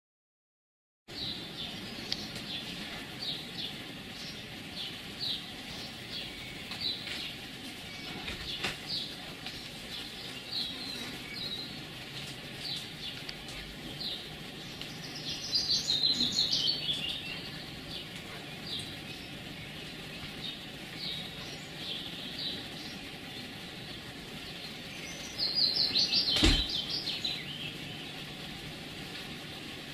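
Small birds chirping over and over, with two louder, busier runs of song about halfway through and again near the end. A single sharp knock comes during the second run.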